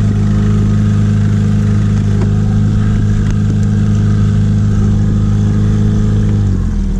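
Boat's outboard motor running steadily at trolling speed, then slowing to a lower pitch about six and a half seconds in.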